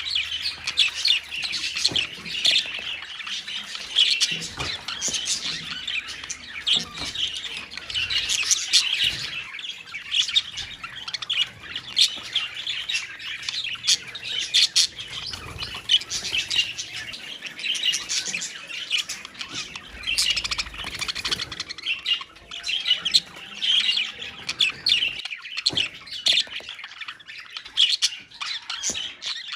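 A colony of budgerigars calling all at once: a continuous, dense chatter of short, high chirps and squawks from many birds.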